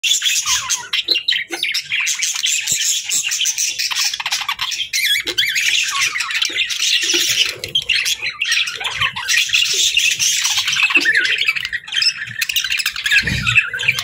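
Budgerigars chirping and chattering without a break: a dense run of quick, high warbles and squawks.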